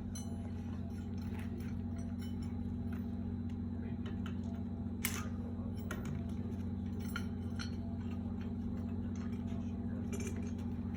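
Steady low machine hum, with a few light metallic clicks, the sharpest about halfway through.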